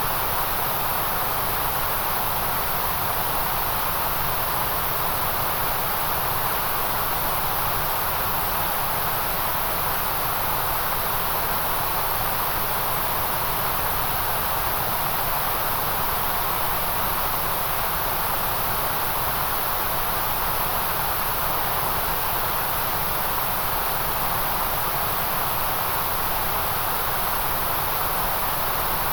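Continuous synthetic white noise: an even, unchanging hiss that does not vary over time.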